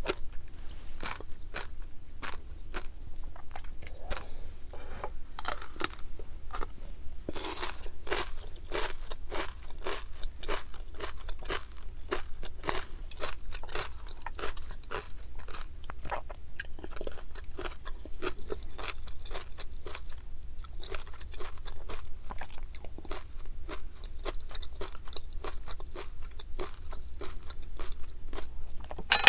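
Close-up chewing of tobiko (flying fish roe): a steady run of small, crisp pops and crunches, several a second, as the eggs burst between the teeth. One louder sharp click comes near the end.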